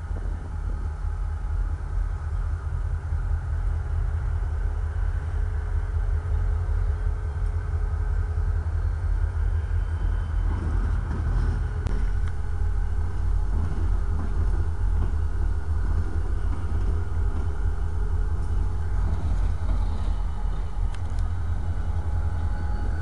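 Steady low engine rumble, growing slightly louder as a diesel locomotive approaches.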